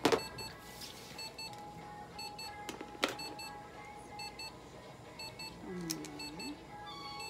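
Sharp clicks of a pet nail clipper snipping a cat's claws, a few seconds apart, the loudest right at the start and about three seconds in. Over it runs a faint, evenly repeating electronic beeping.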